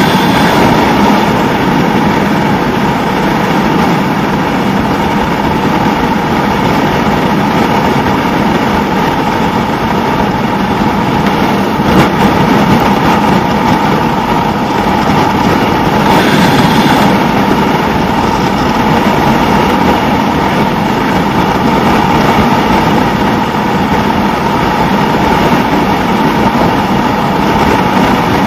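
Suzuki SV650N's V-twin engine running at steady road speed, under a steady rush of wind and road noise. A single brief click about twelve seconds in.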